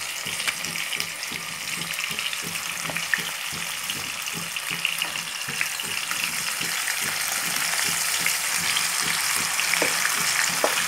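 Hot oil and ghee sizzling and crackling as wet, yogurt-marinated chicken is added to the pan, growing a little louder as more goes in, with a few sharp clicks of the utensil against the pan.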